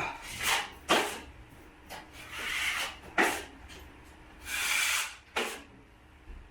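Drywall knife scraping and spreading joint compound over a taped joint: about half a dozen strokes, some short and sharp, with two longer hissing sweeps about two and a half and five seconds in.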